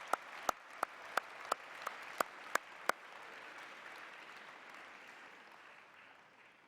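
Audience applauding, with one person's sharp claps close by at about three a second for the first three seconds. The applause then dies away near the end.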